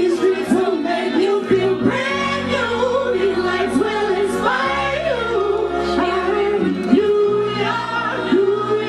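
Music: a melodic sung vocal line, bending and holding notes, over a backing track with held bass notes.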